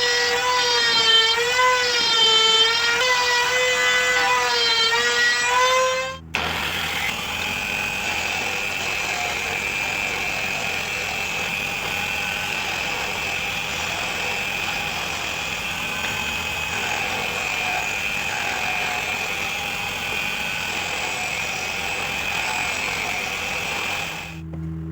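About six seconds of melodic music with a wavering pitch, which cuts off abruptly. Then a power tool runs steadily without a break, with a constant whine.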